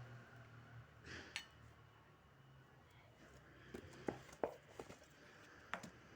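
A few faint taps and clicks of kitchen utensils being handled, several close together just past the middle.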